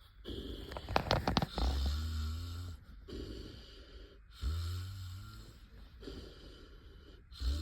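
A man snoring heavily in his sleep: deep rumbling snores about every three seconds, each followed by a wavering higher tone, with a quick rattling burst about a second in.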